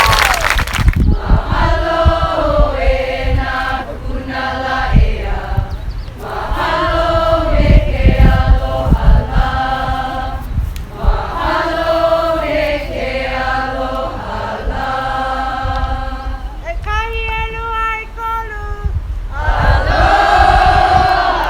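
Group of voices chanting a Hawaiian chant for hula in unison, in phrases of a few seconds with short breaks between them. About 17 seconds in, one long steady note is held alone before the group comes back in.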